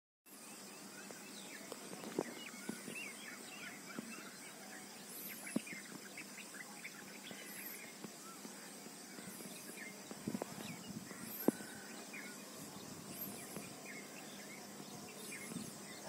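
Many small birds chirping and calling in the early morning, short overlapping notes and a few higher calls, over a faint steady background hiss. A few sharp clicks stand out, the loudest about eleven seconds in.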